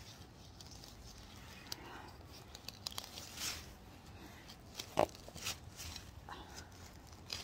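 Hand garden trowel digging into soil: scattered scrapes and crunches of the blade working the earth, with a sharper click about five seconds in.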